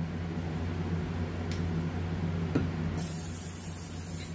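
Airbrush hissing in one short burst of spray about three seconds in, over a steady low hum, with a couple of faint clicks before it.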